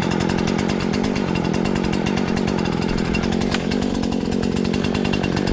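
Husqvarna 120 Mark III two-stroke chainsaw idling steadily with its chain brake on, warming up after a cold start.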